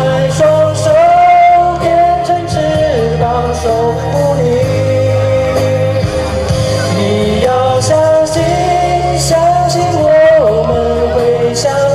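Pop ballad backing track playing, with a singer singing the melody over it.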